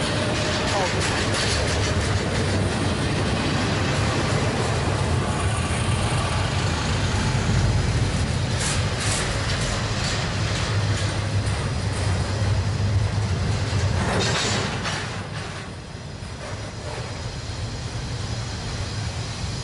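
CSX double-stack intermodal freight train passing close by: a steady rumble and clatter of steel wheels on the rails from the container well cars, with a few sharper clanks, easing off somewhat about fifteen seconds in.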